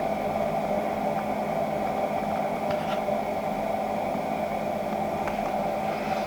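A pellet stove running: its fan gives a steady whir and hum, with a few faint light ticks.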